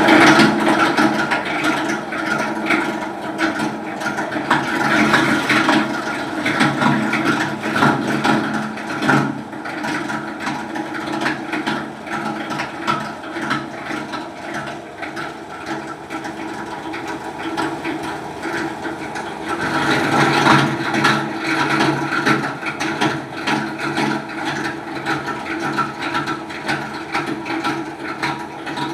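Raffia scrap grinder running, its rotor blades chopping woven polypropylene bag scrap with a steady motor hum under dense, irregular crunching. The chopping grows heavier for a stretch at the start and again about two-thirds of the way through.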